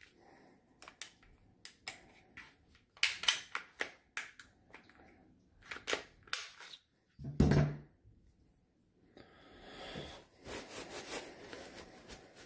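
Sharp metallic clicks and clacks of a Smith & Wesson M&P 40 pistol being handled for field-stripping, with a duller thump about seven seconds in. For the last few seconds there is the steady rustle of a paper towel wiping a pistol part.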